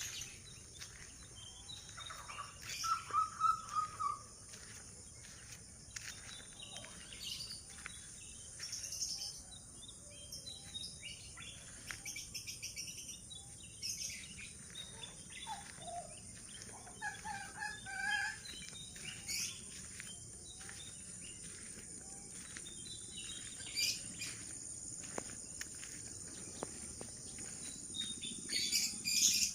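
Assorted wild birds calling and chirping now and then, the loudest a quick run of repeated notes about three seconds in, over a steady high-pitched insect drone.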